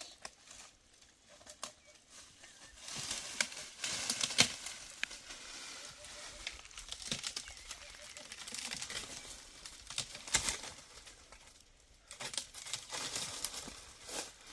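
Rustling, crinkling noise with scattered sharp clicks. It is faint for the first few seconds, louder from about three seconds in, dips briefly near twelve seconds and picks up again near the end.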